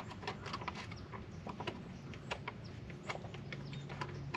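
Thin sausage gravy simmering in a pan, popping and spluttering in irregular small clicks, several a second, over a low steady hum.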